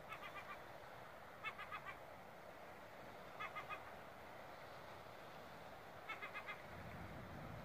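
A bird calling four times, each call a quick run of three or four short pitched notes, over a steady faint hiss of wind and water.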